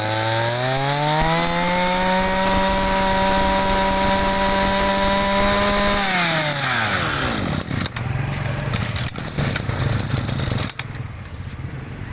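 Small two-stroke brush cutter engine revving up to full throttle, holding a steady high speed for about five seconds, then dropping back to a low, uneven idle.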